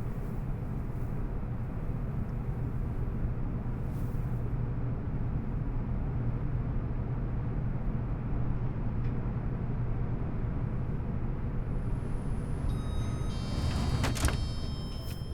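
Lift car travelling down with a steady low hum and rumble. Near the end, high ringing tones and a sharp knock come in just before the sound falls away.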